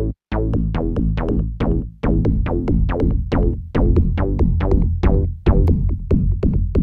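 Background music: a fast, even run of notes, about five a second, over a heavy bass, after a brief stutter at the very start.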